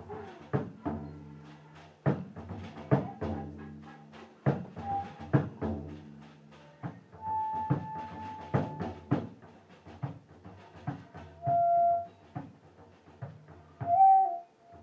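Instrumental music: irregular percussive strikes over a low held drone, with a few short held higher notes, the loudest about twelve and fourteen seconds in.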